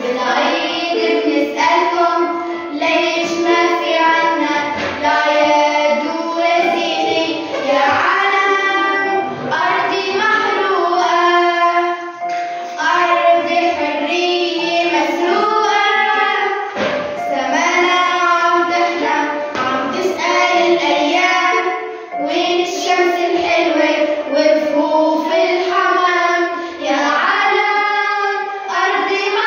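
Young girls singing a song, their voices carrying a continuous melody with only brief breaths between phrases.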